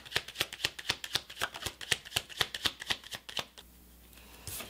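A tarot deck being shuffled by hand: a quick run of soft card slaps, about six a second, that stops about three and a half seconds in, followed by a brief soft rustle near the end.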